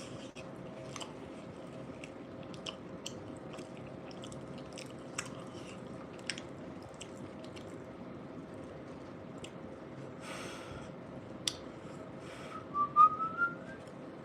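Close-miked chewing of a bean burrito, with scattered wet mouth clicks. A short rising whistly squeak comes near the end.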